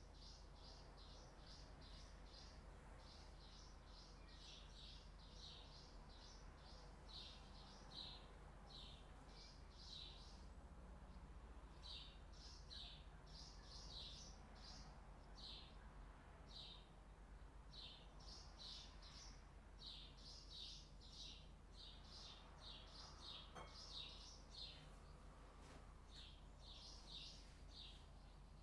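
Faint chirping of small birds: runs of short, high chirps, several a second, broken by brief pauses.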